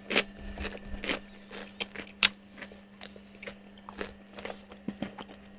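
A person chewing crispy fried food close to the microphone, with irregular crunches; the sharpest crunch comes about two seconds in.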